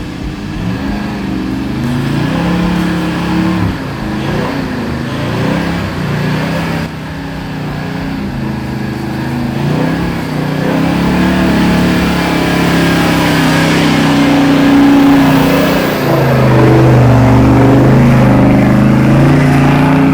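Off-road 4WD's engine revving hard under load on a slippery hill climb. The pitch rises and falls as the revs change, and it gets louder toward the end.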